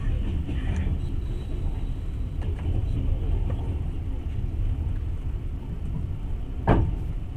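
Passenger train running on the rails, a steady low rumble heard from inside the carriage, with one sharp loud knock near the end.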